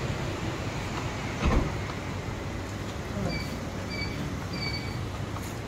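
Walk-through security metal detector beeping three short times, about two-thirds of a second apart, as a person passes through the frame, over a steady background hum. A thump about one and a half seconds in.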